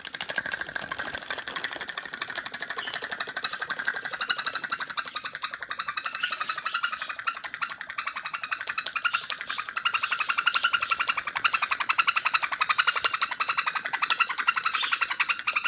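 A pet parrot's rapid, buzzy chattering call, a very fast even run of pulses kept up without a break and growing a little louder in the second half.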